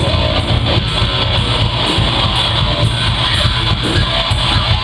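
Rock band playing live, loud and steady, with electric guitar strumming chords over a heavy low end.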